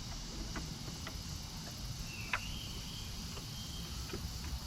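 A few light metallic clicks and taps as a ring terminal is worked onto the alternator's output stud, the sharpest about halfway through, over a steady low rumble and high hiss.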